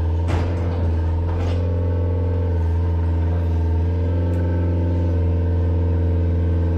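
Heavy machine's engine running steadily at constant speed, with a few sharp knocks in the first second and a half.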